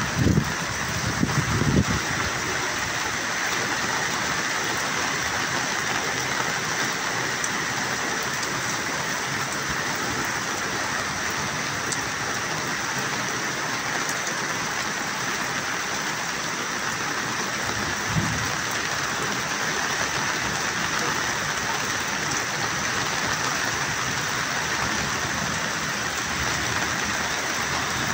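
Heavy rain falling in a dense, steady hiss. A few low thumps come in the first two seconds and once more about 18 seconds in.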